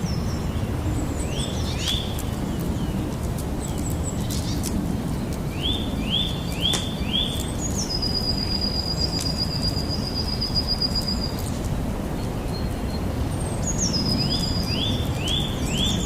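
Campfire crackling, with a few sharp pops over a steady low noise. A bird calls over it twice with a run of four quick rising chirps, and in the middle holds a long, even, high trill for about three and a half seconds.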